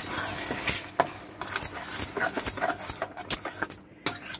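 Steel ladle stirring a thick curry in a stainless steel kadai, clinking and scraping against the pan in quick, irregular taps.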